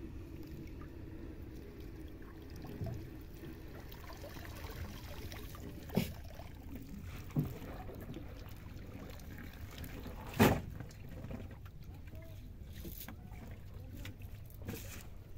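Small wooden boat on a calm river: a steady low rumble of water and wind, with a few sharp knocks of wood and gear on the hull, the loudest about ten seconds in.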